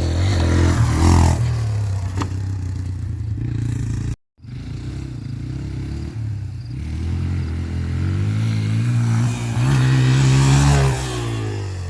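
Yamaha TT-R230 dirt bike's single-cylinder four-stroke engine running while ridden, its note rising and falling with the throttle and climbing in the second half. It cuts out for a moment about four seconds in.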